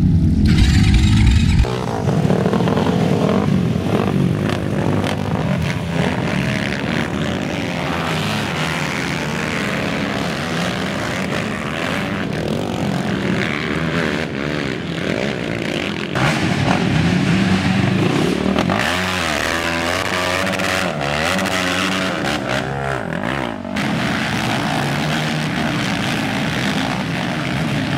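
Racing ATV (quad) engines running hard, several at once, their pitch climbing and dropping as they rev. In the first couple of seconds there is a louder, deeper rumble as a quad churns through water.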